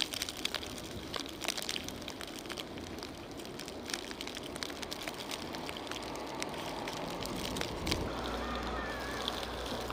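Outdoor noise with many scattered sharp clicks, and about eight seconds in a low steady engine hum sets in, like a vehicle or plow running.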